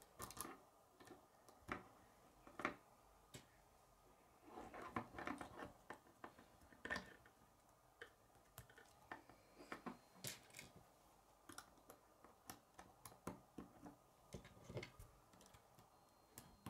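Faint, irregular clicking of plastic K'nex rods and connectors being snapped together and handled, with short pauses between clicks.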